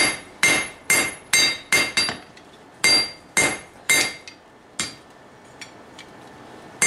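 Hand hammer striking a steel shank on the anvil, sizing it to fit the hardy hole. About eleven ringing metallic blows come in two quick runs, roughly two a second, and then stop for about two seconds near the end.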